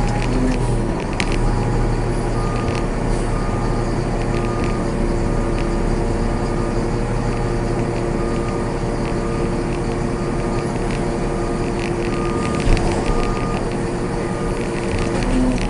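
Self-contained hydraulic trash compactor running with a steady machine hum. A short high beep repeats roughly once a second from about two seconds in.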